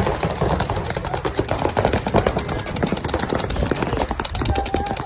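Several paintball markers firing rapid, overlapping strings of shots, a dense irregular popping.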